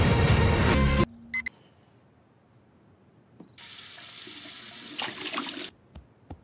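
Background music cuts off about a second in. After a quiet pause, water runs from a tap into a sink for about two seconds, then stops.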